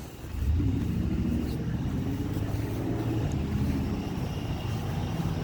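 Outdoor air-conditioner condensing unit running: a steady low hum of the compressor and condenser fan, coming up loud about half a second in.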